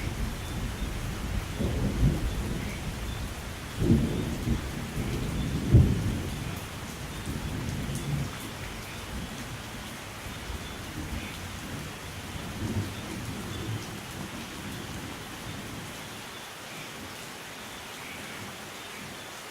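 Steady rain with rolling thunder. Low rumbles swell about 4 and 6 seconds in, then fade away over the second half, leaving the hiss of the rain.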